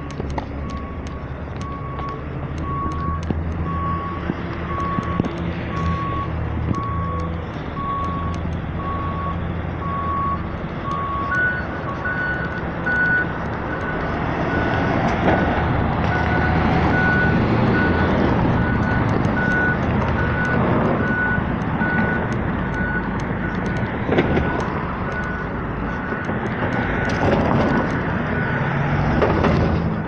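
Bus engine running, growing louder about halfway through, under the steady electronic beeping of reversing alarms at about one beep a second: one alarm at a lower pitch for the first dozen seconds, then a higher-pitched one for the rest.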